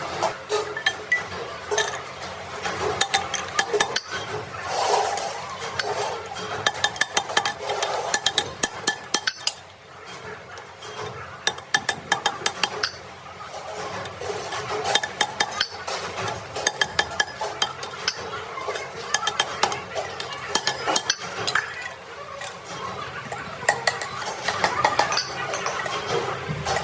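Metal vessels clinking and being tapped, with repeated sharp metallic strikes that come in quick runs.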